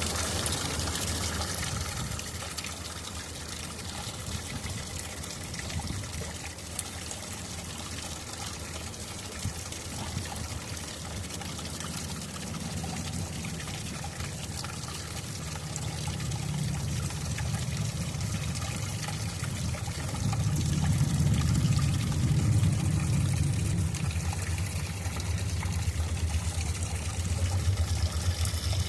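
Small waterfall: water pouring and trickling steadily, a little louder from about twenty seconds in.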